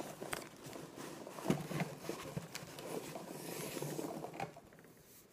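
Rustling and light scraping of hands rummaging through popcorn packing fill in a cardboard box and drawing out paper, with scattered small taps; it dies down near the end.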